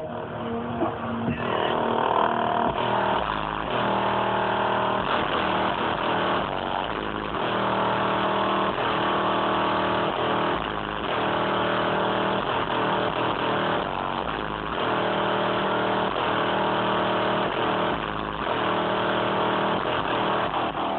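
A song played loud through the car's bass-heavy audio system, with deep bass notes pulsing every couple of seconds under steady sustained chords.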